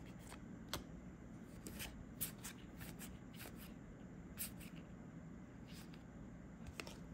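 Trading cards being handled and flipped through by hand: a scatter of faint, short clicks and light rustles, about a dozen, over a low room hum.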